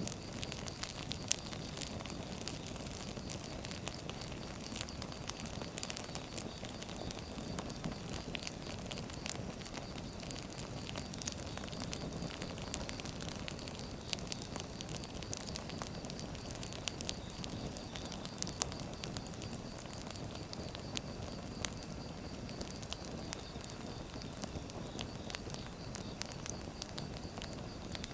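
Firewood logs burning, with frequent irregular crackles and pops over a low steady rumble of flame.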